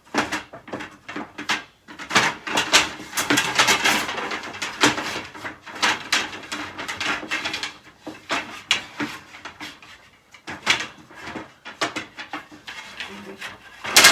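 Irregular knocking, clicking and clattering of bed-frame parts being handled and fitted together during flat-pack assembly, busiest in the first few seconds and again near the end.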